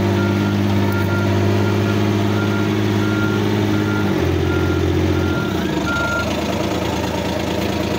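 Side-by-side utility vehicle's engine running as it backs up, its reverse alarm beeping about once every 0.7 s until a little after six seconds in. The engine note shifts about four seconds in.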